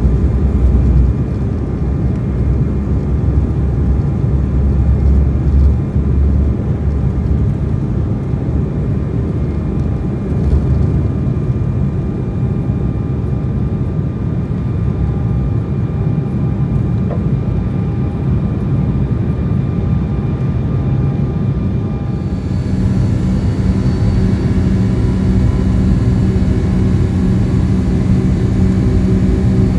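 Airliner engines and cabin noise during a departure, heard from inside the cabin: a loud, steady low rumble with faint engine tones above it. About three-quarters of the way through the sound changes suddenly, with a stronger hum and a high whine coming in.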